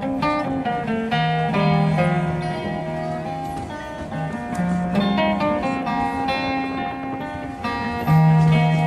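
Acoustic folk guitar music: a relaxed improvised piece of plucked notes and chords.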